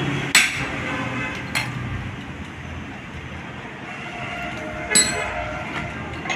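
Hammer blows on the steel universal-joint yoke from a Maruti Suzuki Eeco's propeller shaft, resting on an anvil block, to drive out the old universal-joint cross. Four sharp ringing metal strikes, the first the loudest, two close together at the start and two more later.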